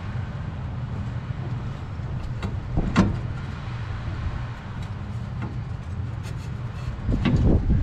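Knocks and clicks of parts being handled during work on the unit's inducer motor: one sharp knock about three seconds in and a cluster of knocks near the end, over a steady low rumble.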